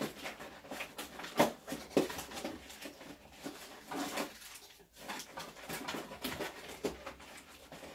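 Hands rummaging in a cardboard box of camera accessories: rustling packaging with irregular knocks and clicks, the sharpest about one and a half and two seconds in.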